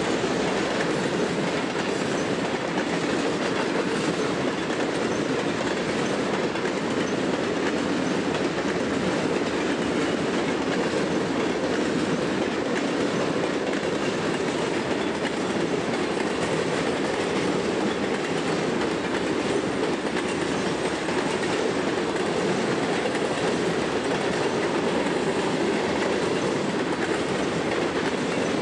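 Covered hopper cars of a grain train rolling past, their steel wheels running steadily on the rails.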